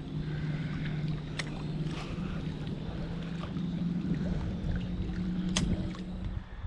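A steady low engine hum, rising slightly in pitch about five seconds in and stopping just before the end, with a few light clicks over it.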